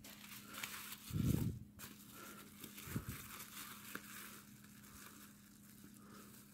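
Plastic bubble-wrap bags crinkling and rustling as they are handled, with a dull low thump about a second in and a softer one about three seconds in.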